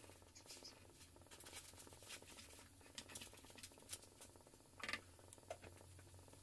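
Near silence with faint, scattered scrapes and ticks of a wooden spatula stirring chopped onions in a non-stick frying pan, over a low steady hum.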